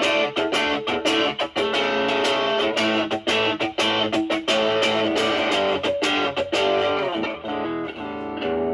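Electric guitar, a Stratocaster with alnico single coils, through a ProCo Brat distortion pedal with an OP07 chip into a Marshall Valvestate amp. It plays a quick run of picked single-note lead lines and then lets a note ring out near the end. The pedal gain is at about 11 o'clock with the guitar's volume rolled back, so the drive cleans up toward a lighter crunch.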